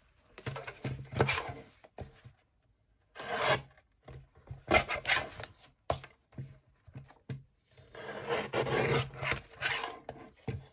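Paper scraps and card rustling and rubbing as they are handled on a cutting mat, with a few light knocks as a plastic paper trimmer is set down and the card is lined up on it. The sounds come in irregular bursts with short quiet gaps.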